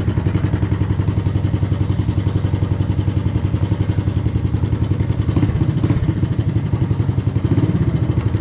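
Honda ATC 185S three-wheeler's single-cylinder four-stroke engine idling with a steady, rapid putter, still warming up after a cold start. The beat briefly changes about five seconds in.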